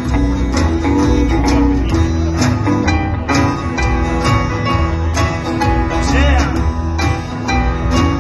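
Live honky-tonk country band playing an instrumental break with a steady beat.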